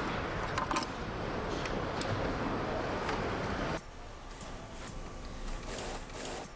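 Car assembly plant noise: a steady machinery din with scattered metallic clicks and knocks, dropping noticeably in level about four seconds in.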